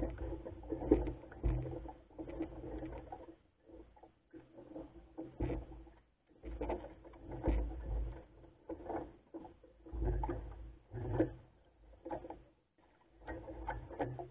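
Water lapping and slapping against the hull of a small wooden Goat Island Skiff sailing dinghy, in irregular bursts with dull knocks and short gaps between them.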